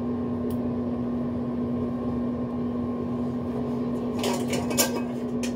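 A steady mechanical hum with a constant low tone, like a running appliance or air conditioner. About four seconds in come a few short clicks and rustles of handling.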